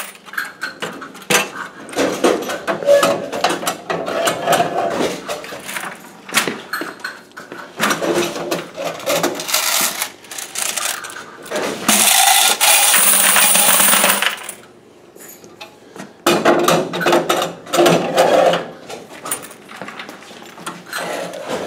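Quarters pouring out of a metal laundromat coin box into a plastic bucket already holding coins, clattering and clinking in several bursts with short pauses between. The densest, loudest pour comes a little past the middle.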